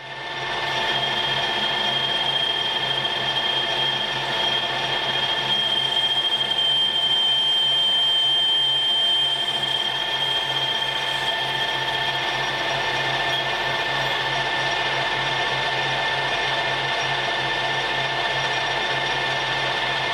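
Paulimot PM4000 metal lathe turning a workpiece, running steadily with a high, even whine over the machine noise.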